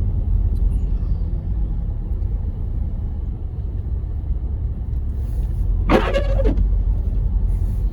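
Steady low rumble of a car's engine and tyres heard from inside the cabin while driving. About six seconds in, a short pitched sound cuts in once.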